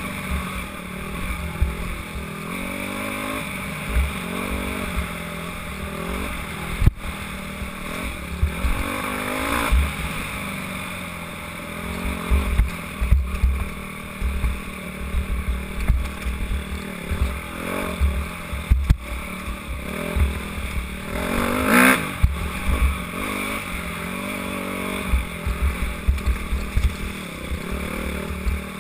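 Dirt bike engine revving up and down as it is ridden over a bumpy trail, with wind buffeting the helmet-mounted microphone and occasional knocks from the bumps.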